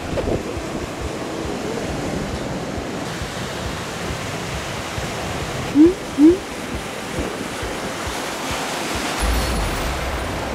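Ocean surf washing and breaking, with wind on the microphone. About six seconds in, two short rising whistle-like tones sound in quick succession.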